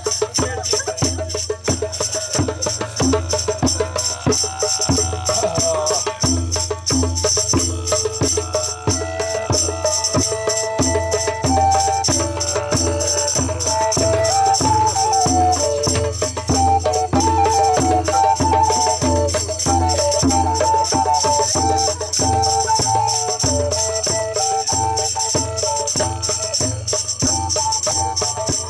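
Music with a steady beat, about two strokes a second, and a wavering melody line that comes in a few seconds in.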